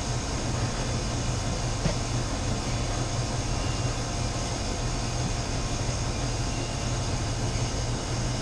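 Steady mechanical hum and whir of household machines running, such as a clothes dryer, washing machine and 3D printer, with one faint click about two seconds in.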